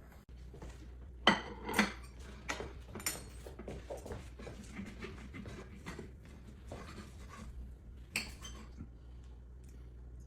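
A run of sharp knocks and small clinks, like hard objects being handled and set down, over a low steady hum. The loudest knocks come just over a second in and again around eight seconds.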